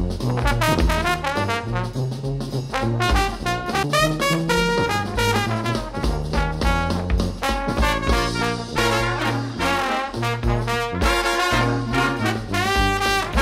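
Background music: upbeat jazz with brass, trombone and trumpet lines over a walking bass and drums.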